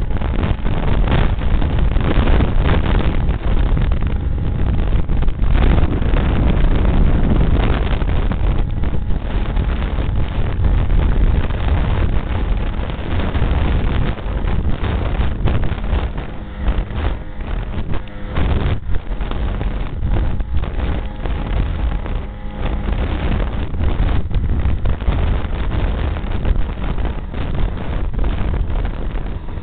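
Ski-Doo REV snowmobile running at speed over a bumpy snow trail, its engine note buried under wind buffeting the microphone, with frequent knocks and jolts from the rough ride.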